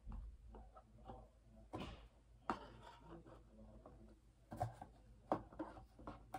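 Cardboard skincare boxes being set down one by one on a granite countertop: several soft, separate taps and knocks, with light handling of the cardboard between them.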